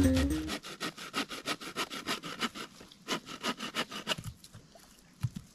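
Homemade bow saw, a bow-saw blade strung on a bent branch frame, cutting through a wooden branch in quick back-and-forth strokes, about four a second, which stop about four seconds in.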